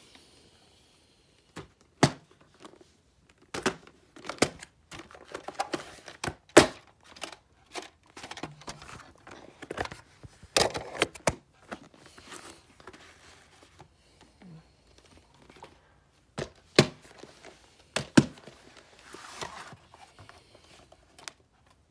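VHS tape cases being handled and shuffled: irregular sharp plastic clacks and knocks as they are picked up and set down, with rubbing and crinkling between.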